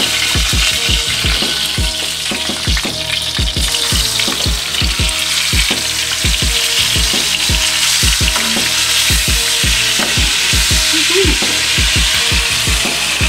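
Chicken pieces sizzling as they sear in hot oil in a skillet: a steady hiss, with many soft low thumps under it.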